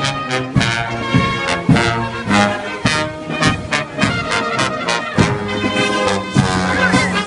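Brass band music: trombones and trumpets playing held notes over regular drum hits.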